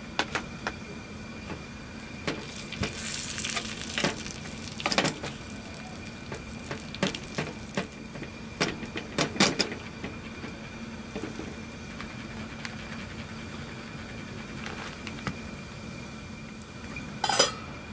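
A utensil scraping and clinking in a frying pan as rice and meat are stirred and fried together, with a light sizzle. The scrapes come in irregular clusters through the first half, then a louder knock near the end.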